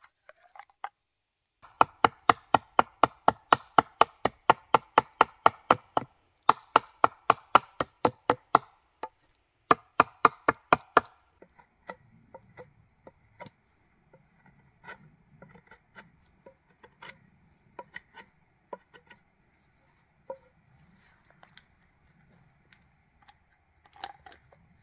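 A knife chopping into a wooden stake held against a stump, shaping a point: quick, even strikes at about four a second, each with a short ring, in three runs broken by brief pauses. After that, only scattered light taps and handling sounds.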